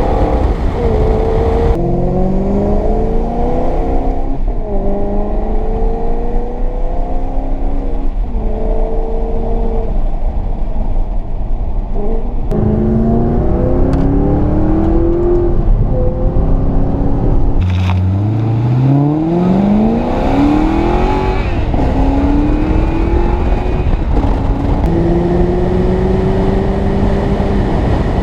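Maserati GranTurismo Sport's 4.7-litre V8 accelerating hard through the gears, its pitch climbing and then dropping back at each shift, about half a dozen times. About two-thirds of the way through, the revs fall sharply and then climb in one long rise.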